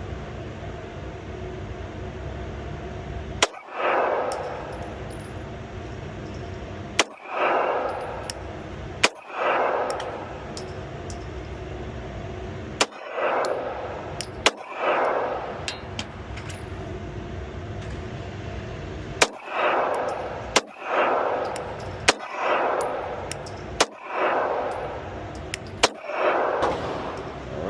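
About ten 9mm shots from a Glock 43X pistol, fired one at a time at uneven intervals of one to four seconds, each a sharp crack followed by a brief ringing echo.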